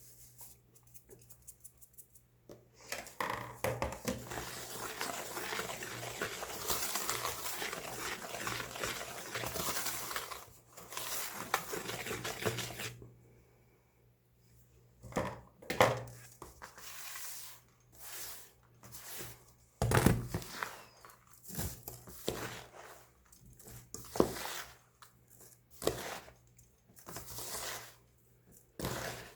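Compressed baking soda being crunched and crumbled. A few seconds in, a long stretch of dense, continuous crackling starts; after a short pause it gives way to a dozen or so separate sharp crunches, about one a second.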